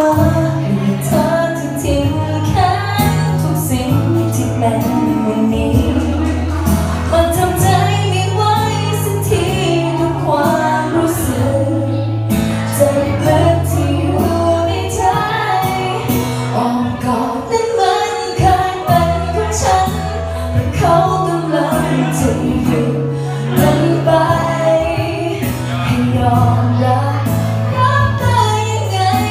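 A woman sings into a handheld microphone over backing music with sustained bass notes. A second woman's voice joins in on another microphone part of the way through.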